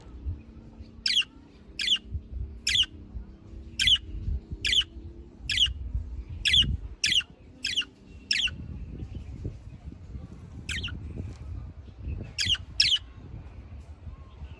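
Budgerigar chirping: a run of short, sharp calls, each a quick downward sweep, repeated about once a second for several seconds, then a pause and three more calls near the end, the last two in quick succession.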